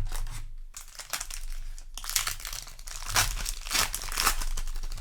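Booster pack wrapper crinkling and tearing as it is handled and pulled open, a run of crackling bursts that grows denser and louder in the second half.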